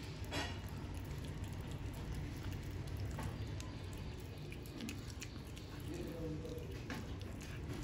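Cat chewing and biting into raw fish: wet, squishy chewing with irregular sharp clicks, over a steady low rumble.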